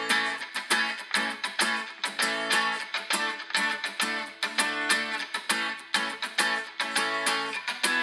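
Background music: strummed guitar playing in a steady rhythm.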